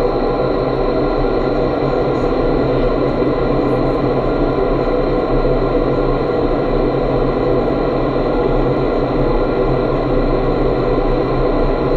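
Indoor skydiving wind tunnel running at flight speed: a steady, loud rush of air from the tunnel's fans, with several steady hums running through it.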